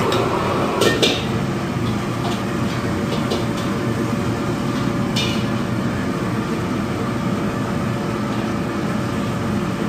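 Steady mechanical noise of a restaurant kitchen, with a faint steady tone running through it and a couple of sharp clinks, about a second in and again about five seconds in.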